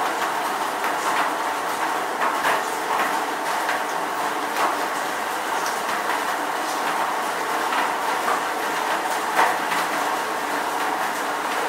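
Rain falling steadily: a continuous hiss with many separate drops tapping at irregular moments.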